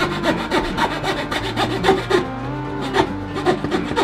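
Wood being worked by hand: quick, repeated rasping strokes of a hand tool on the guitar's wooden top, about three to four a second, over background music.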